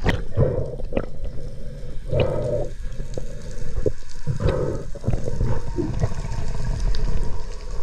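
Sea water heard underwater: a muffled low rumble with swells of noise every two seconds or so and scattered sharp clicks.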